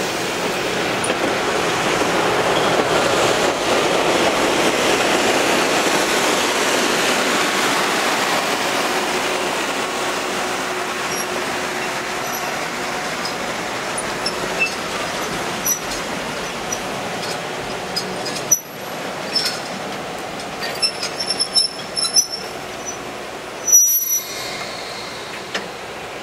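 Passenger coaches rolling past on steel rails, a steady rumble of wheels that is loudest early and slowly fades. From the middle on come short high-pitched wheel squeals and sharp clanks, clustered in the last third.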